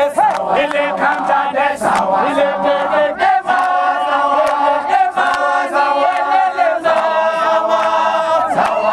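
A crowd singing a chant together, a man's voice out in front leading, with some hand-clapping.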